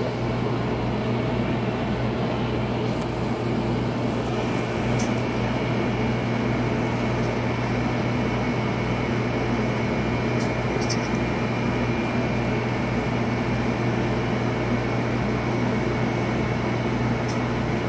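Hurricane laser cutter running while it works a sheet of clear acrylic: a steady mechanical hum with a low drone. A faint thin whine joins about four seconds in.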